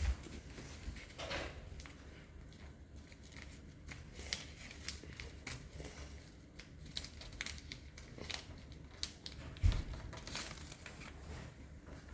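Origami paper being folded and creased by hand: irregular crinkling rustles, with a dull knock a little under ten seconds in.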